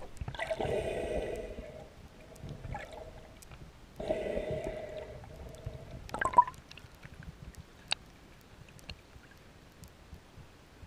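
Muffled water sounds heard through an underwater camera housing in shallow water: two gurgling, rushing bursts of moving water in the first half, a sharp knock about six seconds in, then a faint hiss with a few scattered sharp clicks.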